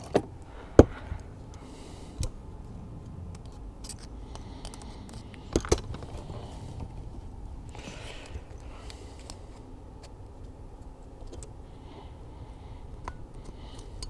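Handling noise of a metal crimp clamp being worked onto a rubber outboard fuel hose: light rustling with a few sharp metallic clicks, the loudest about a second in, over a steady low hum.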